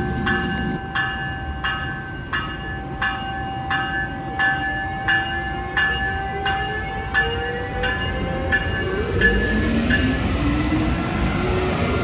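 Amtrak Siemens ACS-64 electric locomotive pulling out with its bell ringing steadily, about one stroke every 0.7 seconds, stopping near the end. Underneath, a whine rises slowly in pitch as the train gathers speed, over the rumble of its wheels on the rails.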